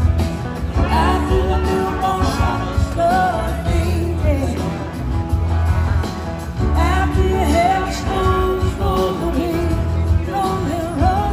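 Live band playing a slow ballad: a woman singing over electric guitar, keyboard and bass.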